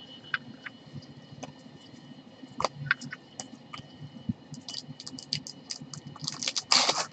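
Light scattered clicks and taps of trading cards being handled and laid down on a desk by gloved hands, with a short rustling swish of cards near the end.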